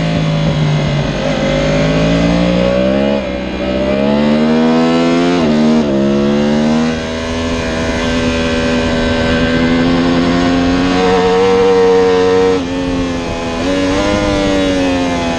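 Yamaha R1's crossplane inline-four engine at full racing pace, heard from on board the bike, its pitch repeatedly climbing under acceleration and falling at gear changes and throttle lifts, with clear drops about three, seven and twelve and a half seconds in.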